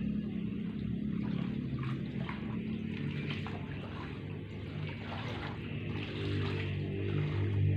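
Pond water splashing and trickling as azolla is scooped up in a plastic scoop and the water drains out of it back into the shallow pond.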